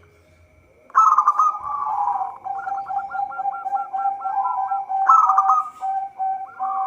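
Zebra dove (perkutut) cooing: about a second in, a loud phrase of rapid, rolling staccato coos starts over a held tone. Fresh phrases begin about five seconds in and again near the end.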